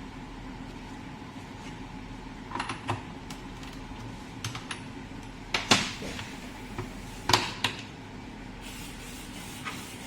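Sharp metallic clicks and knocks from tools and injector parts being handled while a diesel injector is taken apart, the loudest two in the middle of the clip, over a steady background hum. A faint hiss comes in near the end.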